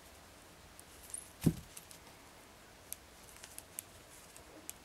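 Small metal jewellery findings being handled with pliers: a few faint clicks and clinks as a jump ring is closed on a lobster clasp and chain, with one soft thump about a second and a half in.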